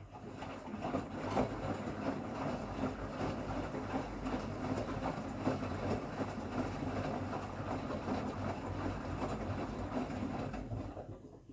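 Beko washing machine's empty drum turning in its calibration cycle: the motor runs and the drum rumbles with a light irregular clatter, starting at once and winding down about a second before the end.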